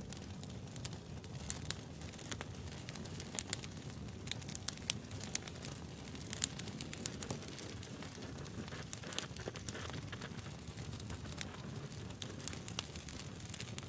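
Wood fire burning, with irregular sharp crackles and pops over a steady low rumble of the flames.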